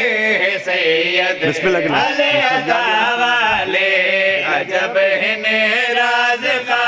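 A man chanting a line of Punjabi devotional verse in a drawn-out, melodic recitation, with long held notes.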